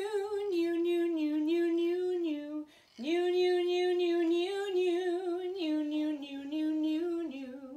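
A woman's voice imitating a tiny violin: a wordless, violin-like melody sung on long notes with vibrato, in two phrases with a short breath about three seconds in.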